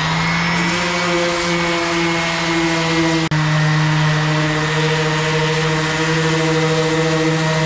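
DeWalt electric sander with fresh 80-grit paper running at full speed against a flat-bottom boat's hull: a steady motor whine under a hiss of sanding. There is a split-second break about three seconds in.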